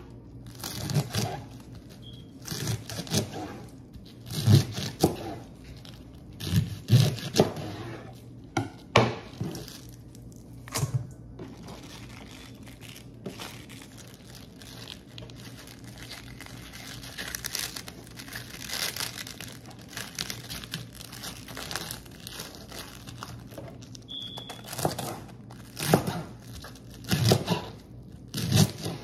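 Irregular crinkling and tearing handling sounds, coming in bursts with a few sharper knocks, busiest in the first ten seconds and again near the end.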